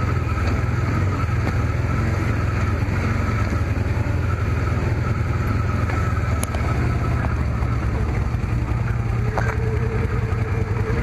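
Can-Am Commander side-by-side's engine running steadily at low speed as it crawls over snow and mud, a constant low rumble with a thin steady whine coming in about nine seconds in.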